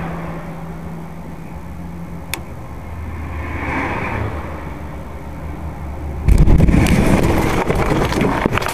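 Vehicle running with a steady low drone and a single sharp click about two seconds in. Just after six seconds a sudden, much louder noisy rush with clattering begins and keeps going.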